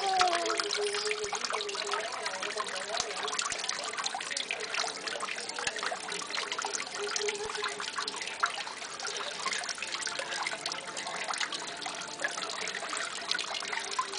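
Water trickling and splashing steadily in a koi pond, a continuous crackling patter.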